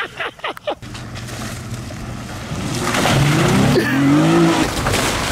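Car engine running, then revving up hard with a climbing pitch from about three seconds in, as the car is driven flat out over rough dirt and grass. A few sharp knocks sound in the first second.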